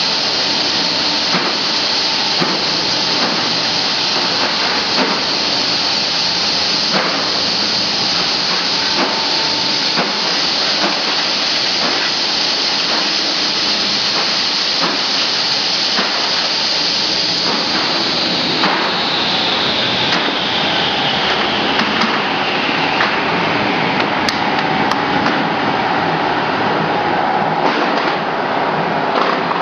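Automatic bamboo chopstick-blank cutting machine running, a steady loud mechanical noise with a high whine and regular knocks about once a second as it cuts. About two-thirds of the way through, the whine falls in pitch over several seconds.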